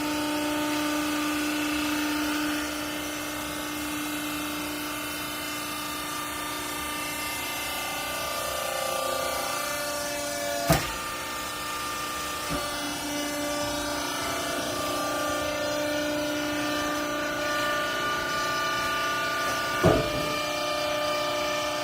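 Hydraulic clothing baler's pump motor running with a steady whine made of several tones, its pitch shifting slightly partway through. Two sharp knocks cut across it, about eleven seconds in and again near the end.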